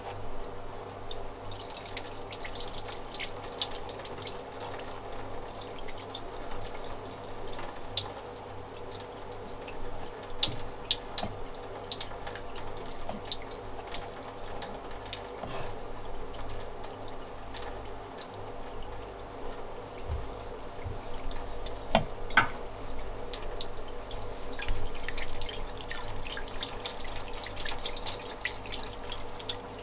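Gutting and rinsing a saury: sharp knife clicks and scraping on a plastic cutting board, then water splashing in a steel bowl as the fish is washed by hand near the end. A steady hum runs underneath.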